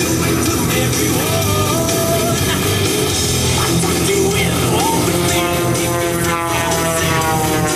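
Rock music with singing and guitar. Over the last couple of seconds an aerobatic propeller plane passes, its engine pitch falling.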